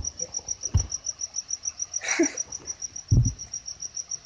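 A cricket chirping: a steady, even train of high-pitched pulses, about seven a second. Two short low thumps break in, about a second in and about three seconds in, the second the loudest sound.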